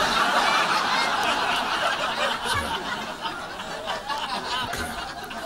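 Audience laughing, the laughter dying away gradually.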